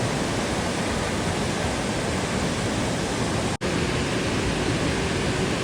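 Waterfall rushing with a steady, even roar of falling water. It cuts out for a split second about three and a half seconds in, then carries on unchanged.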